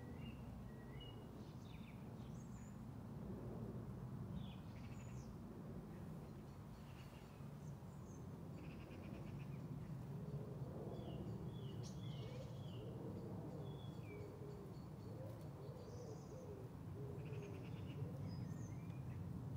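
Long-tailed tits calling as they settle to roost: thin, high, short notes and a few brief rattling trills, scattered throughout. From about halfway in, a lower repeated hooting call runs beneath them, over a steady low rumble.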